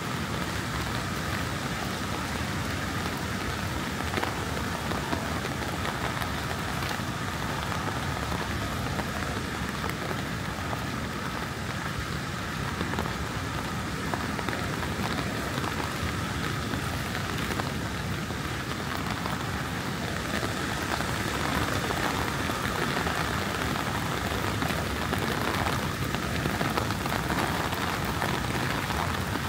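Heavy rain falling steadily, a continuous even hiss of drops on the ground, growing a little louder about two-thirds of the way in.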